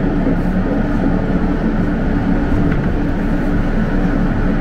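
R160 subway car's ride noise from inside as the train slows into a station: a steady wheel-on-rail rumble with a low hum from the propulsion system.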